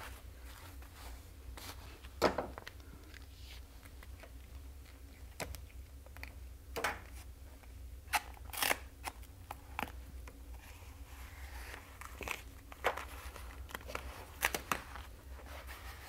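Foam pipe insulation and tape being handled and wrapped around a pipe: scattered crinkling, rustling and a few sharp tearing sounds over a steady low hum.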